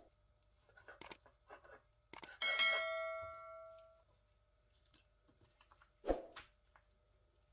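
Knife knocking and scraping on a plastic cutting board while slicing raw chicken breast, with a sharper knock about six seconds in. About two and a half seconds in, a bright bell-like chime rings and fades over about a second and a half: the notification ding of a subscribe-button animation.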